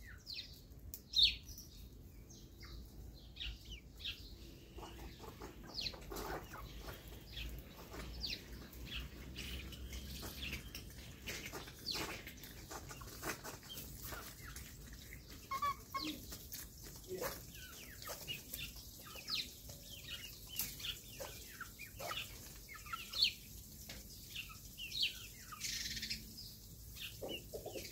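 Backyard chickens clucking and chirping now and then as they forage, with scattered small clicks of pecking and scratching in gravel.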